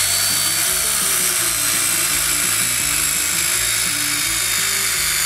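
Handheld circular saw running steadily through a thick, frozen creosote-treated timber slab on a shallow-depth cut, a loud continuous whine over the sound of sawing.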